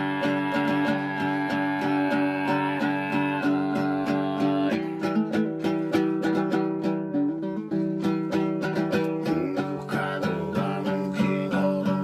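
Instrumental music: a plucked string instrument strumming a steady rhythm over a held drone note, which shifts up in pitch about a third of the way in.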